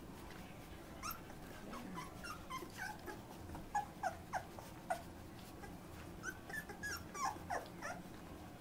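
Two-week-old puppies whimpering and squeaking in short, high, falling cries that come in scattered clusters, with faint clicks as the litter crawls about.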